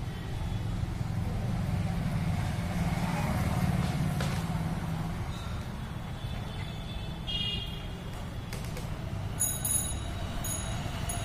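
Steady low engine rumble, like road traffic, with faint short high-pitched beeps repeating near the end.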